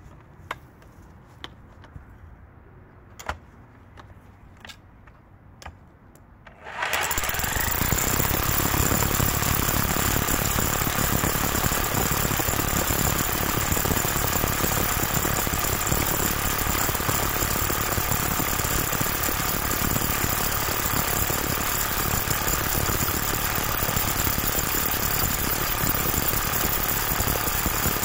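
A few faint clicks, then about seven seconds in a Parkside Performance PPBH 1600 A1 corded 25-joule SDS-max hammer drill starts and runs steadily, hammer-drilling a 25 mm hole into a stone block.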